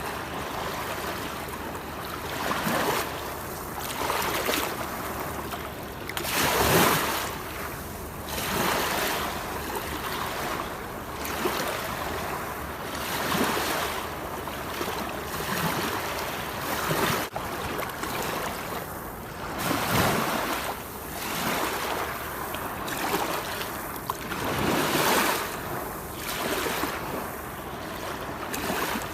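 Rushing water: a continuous wash of noise that swells and fades every one to two seconds, with stronger surges about 7 and 20 seconds in.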